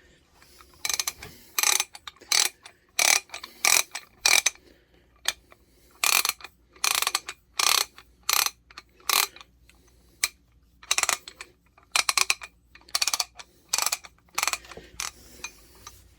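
A Bonney 4285 3/4-inch drive ratchet is swung back and forth by hand, its pawl clicking in short bursts, one per stroke, about one and a half strokes a second. The strokes come in three runs with brief pauses between them. The mechanism is freshly oiled with 3-in-1 oil and is being cycled to work the oil in.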